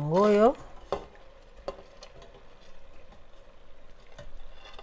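Fried pork pieces being scraped with a wooden spoon from a glass plate into a stainless steel pot, sizzling faintly in the pot, with a few sharp knocks of the spoon against plate and pot.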